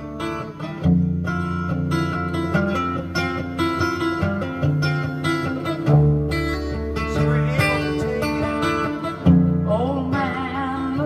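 An acoustic guitar song played loud through a Bennington pontoon boat's standard stereo speakers, still sounding clean. A singing voice comes in near the end.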